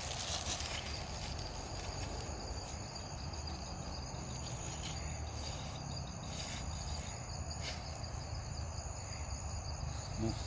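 Steady, high-pitched insect chorus of crickets or similar insects, over a low background rumble.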